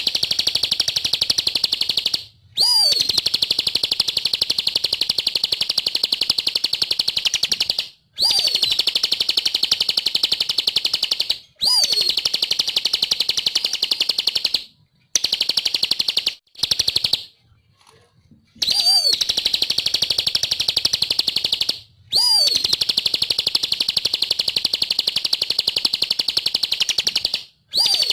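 Ciblek (bar-winged prinia) singing in long, rapid, high-pitched trills. It sings about eight bouts of a few seconds each, with short pauses between them, and each bout opens with a sharp upslurred note.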